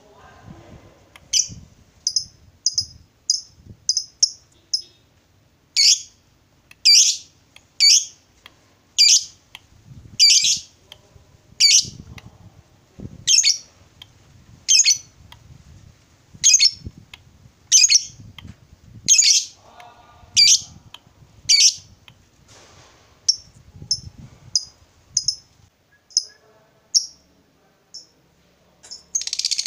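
A caged lovebird giving short, sharp, shrill calls about once a second, with quicker runs of short chirps in between, the calling-out of a lovebird answering or challenging a rival. Right at the end it breaks into a rapid continuous chatter (ngekek).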